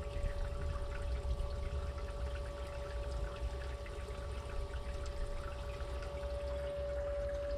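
Water trickling and lapping against a small boat, over a steady low hum and a fluctuating low rumble.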